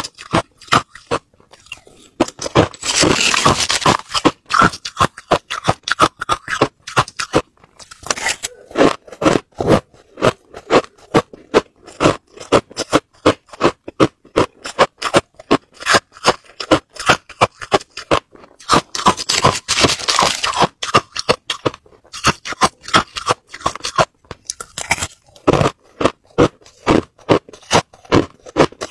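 Crushed ice crunched and chewed between the teeth close to the microphone: a fast run of sharp crunches, several a second. Twice, about three seconds in and again past the middle, there is a longer, denser scraping rush.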